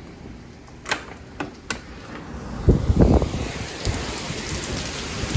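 A few sharp clicks in the first two seconds. Then, from about two and a half seconds in, hurricane wind and rain: heavy gusts buffet the microphone over a steady hiss of driving rain.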